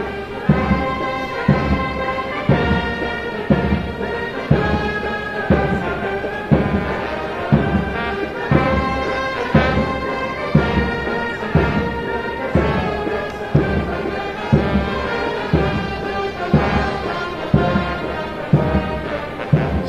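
Military brass band playing a march, with held brass chords over a drum beat about once a second.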